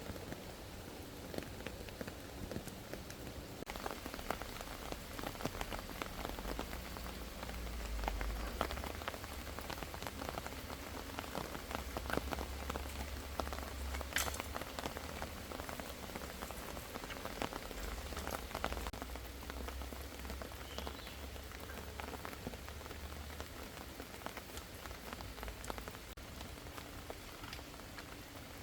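Heavy rain falling, with many separate drops striking close by. A low rumble comes and goes through the middle.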